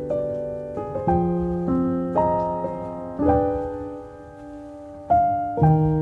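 Background music: slow solo piano, single notes and chords struck and left to ring, with a brief lull before a chord near the end.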